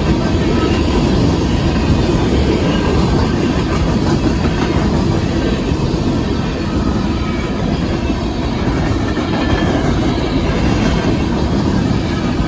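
Freight cars of a Union Pacific coal train rolling past at close range: a steady, loud noise of steel wheels running over the rail joints.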